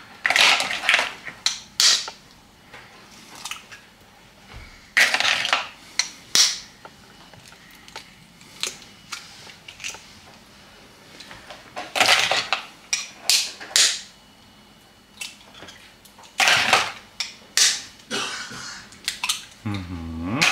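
Raw eggs cracked open one after another by tapping them with a table knife: groups of sharp taps and shell cracks every few seconds.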